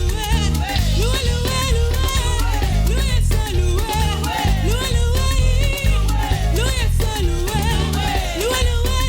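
Upbeat praise-and-worship music with a rhythmic bass line under a gliding melody.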